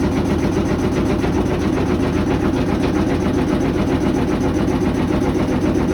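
Washer of a GE GUD27ESSM1WW stacked washer-dryer spinning with the drum empty and making a loud, steady, fast banging rattle. It makes this horrible noise even with nothing inside.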